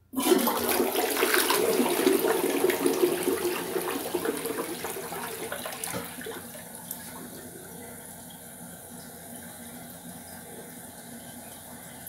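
Toilet flushing: rushing, gurgling water starts suddenly, runs loud for about six seconds, then drops to a quieter steady hiss of running water. The owner says this toilet flushes slowly.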